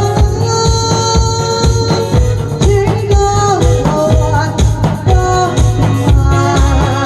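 Loud amplified music with a heavy steady beat under a held melody line.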